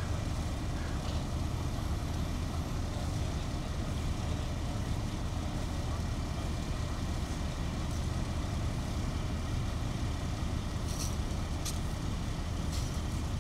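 Steady low rumble of a fire engine's diesel engine idling, with a few light clicks and rattles near the end from a wheeled ambulance stretcher.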